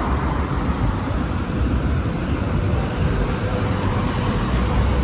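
Road traffic on a city street: cars passing in a steady, even rumble of engines and tyres, with a faint steady hum joining about halfway through.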